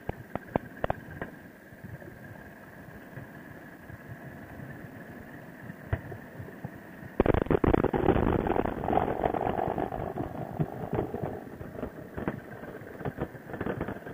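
Harley-Davidson Sportster's V-twin running at road speed, with wind noise, low at first and then suddenly much louder about seven seconds in.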